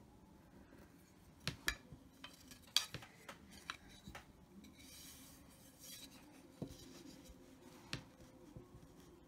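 Wooden ruler and pencil handled on a tabletop: a scattering of light clacks and taps, the loudest between about one and a half and three seconds in, and a brief scratchy rustle around five seconds in.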